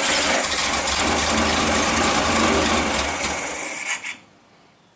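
Starter motor cranking the freshly rebuilt air-cooled flat-four engine of a 1974 VW Super Beetle: an even, rasping churn with a rhythmic low pulse for nearly four seconds. It stops without the engine catching, and one short burst follows.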